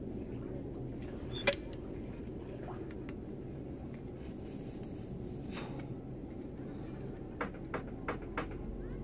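Clicks from a hand caulking gun being handled and worked: one sharp click about a second and a half in, then four quick clicks about a third of a second apart near the end, over a steady low rumble.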